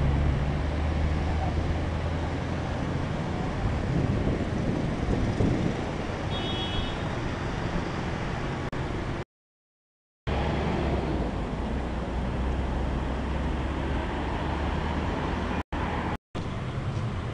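Steady road traffic noise with the low drone of passing engines. A brief high-pitched tone sounds about six seconds in, and the sound drops out completely for about a second just after nine seconds in.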